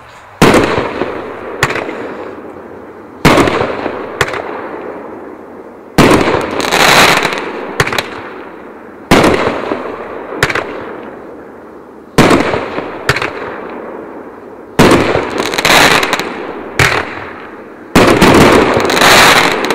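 Neon Eagle 9-shot firework cake firing: loud sharp reports about every three seconds, each followed about a second later by a fainter second bang and a long echoing tail. A few of the shots trail off in a longer rushing hiss.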